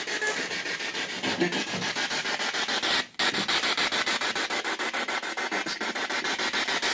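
Spirit box scanning rapidly through radio stations, played through a small external speaker: static chopped into a fast, even pulse of about ten a second. It cuts out for a moment about three seconds in.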